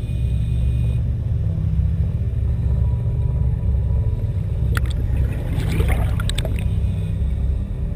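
Muffled, steady low rumble of underwater audio from a scuba diver's camera. A short burst of bubbling and crackling comes about five to six seconds in, like exhaled bubbles from a scuba regulator.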